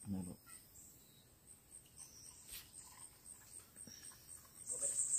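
Insects chirping in the background, a faint, high-pitched, evenly pulsing sound that swells into a louder pulsing buzz near the end.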